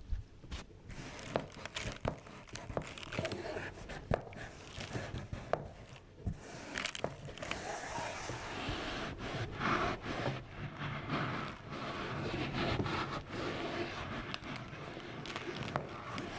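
Close rustling and crinkling, with scattered sharp clicks and pops throughout. The rustling grows denser and steadier about halfway through.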